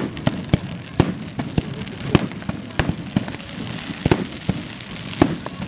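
Aerial fireworks display: shells and comets bursting in a quick, irregular string of sharp bangs, several some seconds, with crackling between them.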